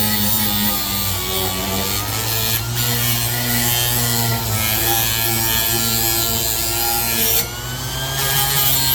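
Orbital sander with a 220-grit disc running continuously against a steel scraper blade clamped in a vise: a steady motor hum under a grinding hiss, its pitch wavering slightly as the pressure changes. It briefly goes quieter about seven seconds in, then picks up again.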